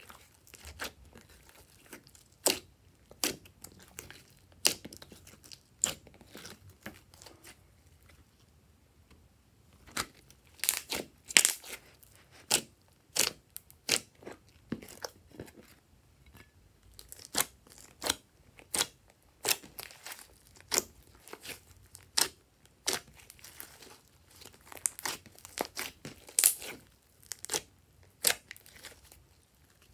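Hands squishing and folding glossy slime, giving irregular sharp clicks and wet pops as air pockets in the slime are squeezed out. There is a quieter pause of about two seconds near the eight-second mark.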